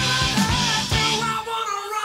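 Rock song with a sung melody over a regular drum beat. The drums and bass drop out briefly near the end.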